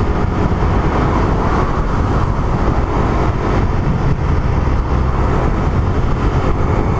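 Suzuki Raider R150 Fi's single-cylinder four-stroke engine running steadily at moderate revs in high gear while riding, held below 6000 rpm for break-in, with wind rushing over the microphone.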